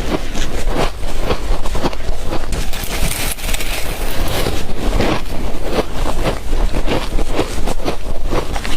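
Close-up crunching and chewing of shaved ice, a quick irregular series of crisp crunches over a low rumble.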